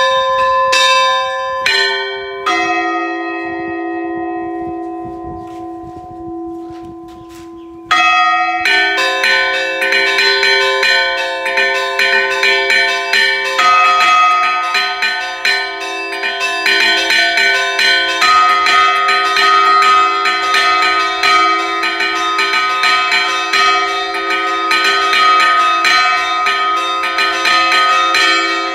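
Bronze chapel bells rung by hand, their clappers pulled by ropes, in a Brazilian repique. A few opening strokes ring and slowly die away; then, about eight seconds in, a fast, continuous peal of rapid strokes on several bells begins and keeps going.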